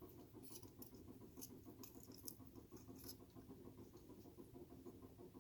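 Near silence, with faint scattered light clicks and scratches of small steering-column parts being handled.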